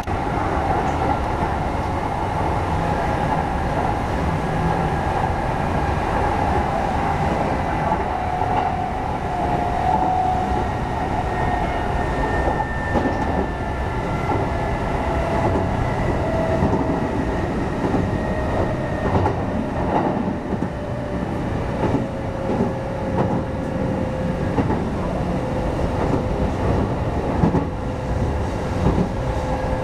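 Inside a 1200-series electric train running on, with steady rumble and a motor whine that slowly falls in pitch as the train loses speed. A few rail-joint clacks come through now and then.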